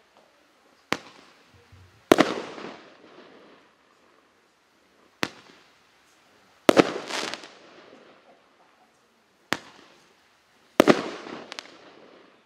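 Roman candle (0.8-inch, 8-shot) firing three shots about four seconds apart. Each shot is a sharp pop as the star is launched, then about a second later a louder bang as it bursts in the air, followed by crackling that dies away over a second or two.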